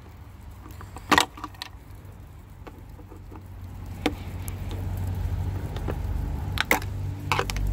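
A flathead screwdriver clicking and tapping against the plastic caps beside a tail light as they are pried at, four sharp clicks with the loudest about a second in. Under them runs a low rumble that grows louder over the second half.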